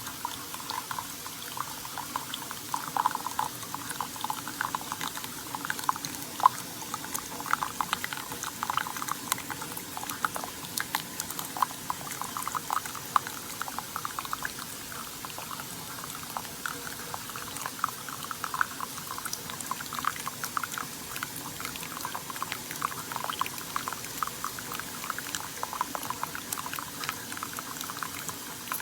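Keurig K-Slim pod coffee maker brewing: hot liquid streaming and bubbling, with many small irregular pops and crackles over a steady hiss.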